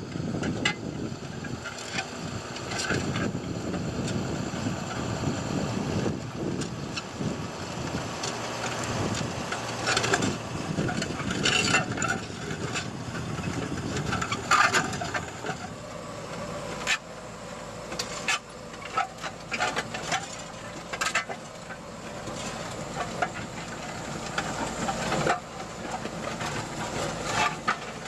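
Tractor-drawn Magnum DV 980M heavy offset disc harrow working hard, stony ground: a steady rumbling drone of the tractor and the discs cutting soil, broken by frequent irregular sharp knocks and clicks of the steel discs hitting stones.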